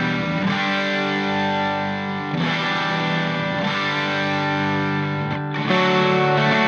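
Background music: distorted electric guitar playing held chords that change every second or two.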